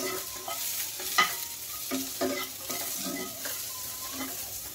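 Chopped yardlong beans (barbati) sizzling in a little oil in a nonstick frying pan while a spatula stirs and scrapes them. There is a steady hiss, with scattered scrapes and one sharper knock about a second in.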